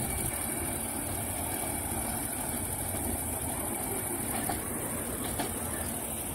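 Diesel-hauled passenger train pulling away, its EMD GT22HW-2 locomotive at the far end: a steady low rumble of engine and running gear. Two brief clicks about a second apart come past the middle.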